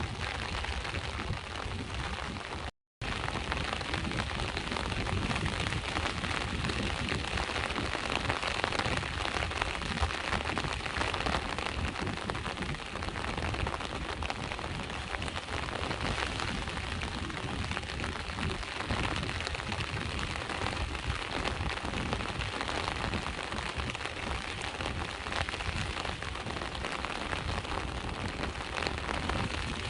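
Steady rain falling, mixed with sea waves washing at the shore, as an even dense hiss. The sound cuts out completely for a split second about three seconds in.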